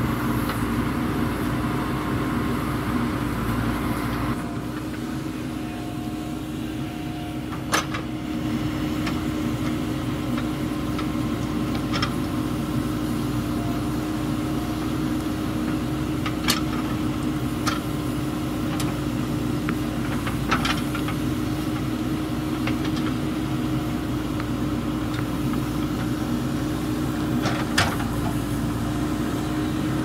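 JCB 3DX backhoe loader's diesel engine running steadily as the backhoe works, with a few short sharp clanks scattered through.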